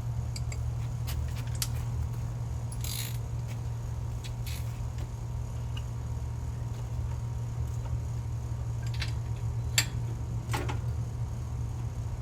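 Metal tool clicks, clinks and short scrapes of a spark plug being taken out of a small engine, scattered irregularly with one sharp click near the end, over a steady low background hum.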